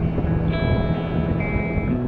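Background music with held guitar notes.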